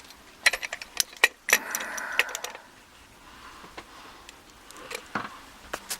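Sharp metal clicks and a short rattle in the first two or three seconds, then a few scattered clicks: a Montery euro-cylinder padlock being handled and clamped into a bench vise.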